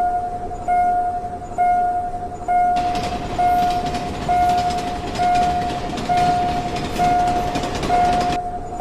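Japanese level-crossing warning bell ringing its steady "kan-kan" tone, about once every 0.9 seconds. From about three seconds in, the rushing noise of a passing train joins it and cuts off suddenly near the end.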